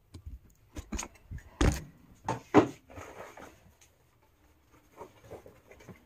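Several sharp knocks and clunks of household objects being picked up and set down, with a bag rustling, the loudest knocks close together in the first half.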